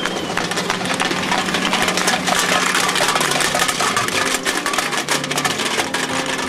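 Tin cans tied behind a Toyota Echo clattering and scraping in a rapid, continuous rattle as they drag along the road, over the car's steady engine hum.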